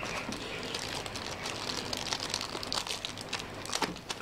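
Clear plastic bag crinkling as hands unwrap a USB cable from it: a dense, irregular run of small crackles.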